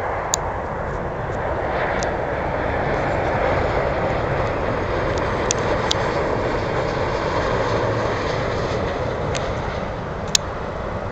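Jet noise from a Boeing 717's two rear-mounted Rolls-Royce BR715 turbofans on landing approach with gear down. The steady rushing noise swells as the jet comes close and eases near the end, with a few sharp clicks.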